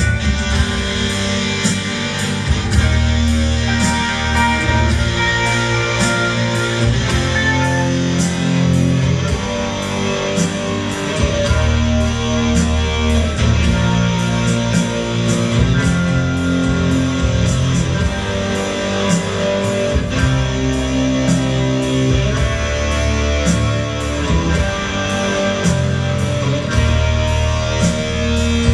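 Instrumental music led by guitar over sustained bass notes, with a light steady beat.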